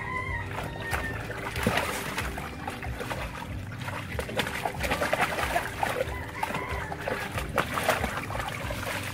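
A golden retriever pawing and splashing in water in a plastic storage bin: repeated irregular splashes and sloshing.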